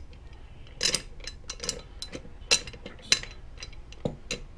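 Small metal parts of a gas pressure regulator clicking and clinking as the bonnet and its cap screws are handled and set in place: a string of about eight short, irregular taps.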